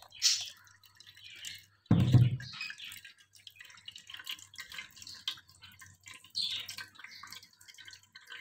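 Blended carrot-orange juice pouring into a stainless steel mesh strainer, then juice dripping and trickling through into the bowl below, with many small scattered drips. One dull thump about two seconds in.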